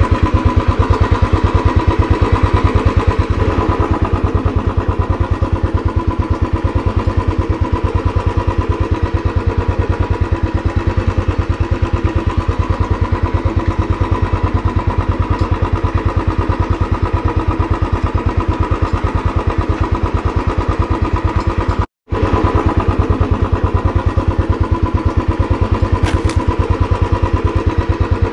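Royal Enfield Classic 350 single-cylinder engine running at low, steady revs with an even pulsing beat. The sound cuts out completely for a split second about three-quarters of the way through.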